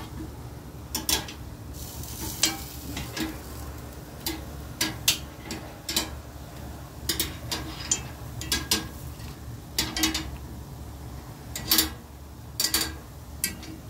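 Metal tongs clicking and scraping against a grill grate as corn tortillas are laid down and moved: a dozen or so short sharp clicks scattered through, over a steady low hum.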